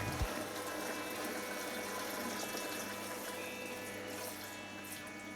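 Miele W487 washing machine running its rinse phase: a steady rush of water as the drum fills, over a faint hum from the machine.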